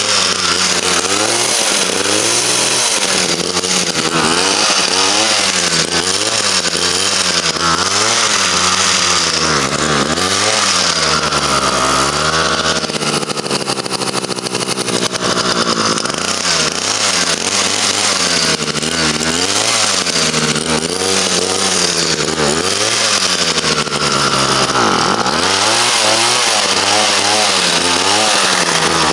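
A RYOBI petrol hedge cutter's small engine running, its speed rising and falling over and over, about once a second. It runs faster and higher-pitched for the last few seconds.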